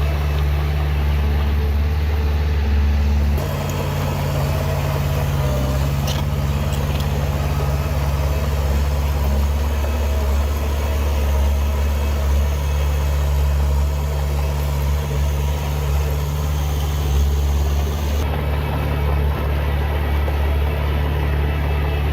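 Heavy diesel engine of earthmoving machinery running steadily, a low, continuous drone. Its sound changes abruptly about three and a half seconds in and again a few seconds before the end.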